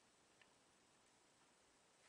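Near silence: room tone, with one faint click about half a second in.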